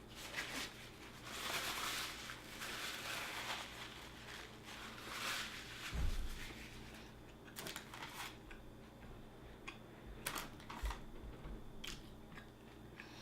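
Close-miked biting and chewing of a Jimmy John's Vito sub sandwich, with a long stretch of dense crunching over the first half. A dull thump about six seconds in is the loudest sound, and a few sharp clicks follow later on.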